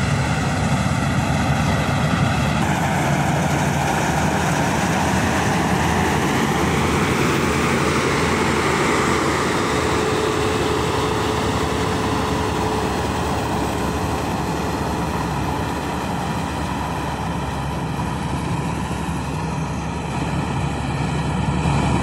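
Marksan Mudmaster rice combine harvester running steadily as it cuts and threshes standing paddy, with a continuous engine and machinery drone.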